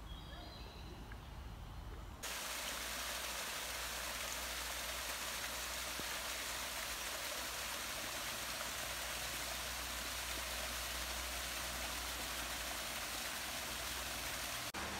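Birds call briefly, then, about two seconds in, a steady rush of water sets in: a small waterfall spilling down a rock face and splashing into a pool.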